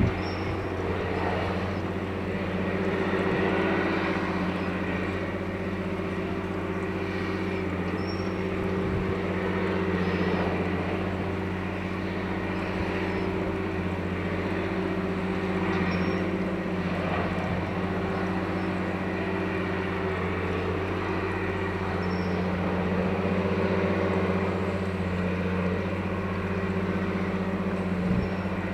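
Diesel engine of a multiple tie tamper track-maintenance machine running with a steady, even drone, with a few faint knocks now and then.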